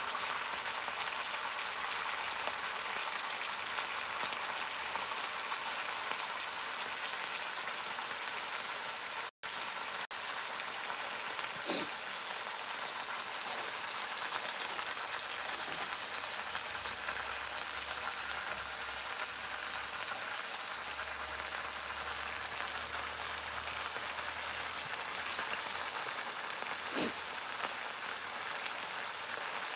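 Bacon-wrapped pork tenderloin frying in oil in a metal skillet: a steady crackling sizzle. Two brief light clicks, one near the middle and one near the end.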